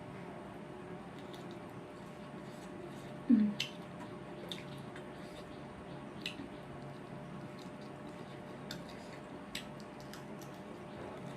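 Close-up eating sounds: wet chewing with small, scattered mouth clicks and squelches, and one short, louder sound with a falling pitch a little over three seconds in.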